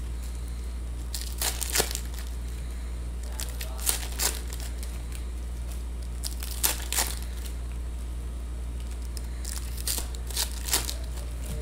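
Foil trading-card packs being torn open and crinkled by hand, with the cards handled: short, sharp crackles in small clusters every second or two, over a steady low hum.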